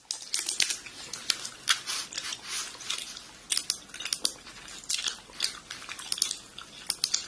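Irregular crisp crunching and crackling, several sharp crackles a second with short pauses between, fainter in places.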